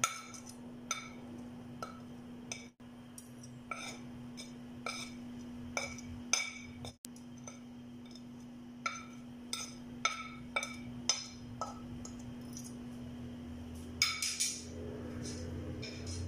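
Repeated light clinks, unevenly spaced about a second apart, of a small bowl knocking against the rim of a stainless-steel mixer-grinder jar as spice powders are tipped in, over a steady low hum.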